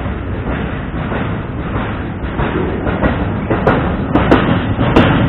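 Double-stack intermodal freight train passing close by: a steady rumble of steel wheels on the rails, with sharp clanks and bangs from the wheels and cars in the second half.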